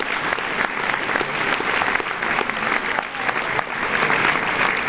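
An audience applauding: many hands clapping steadily, with no break.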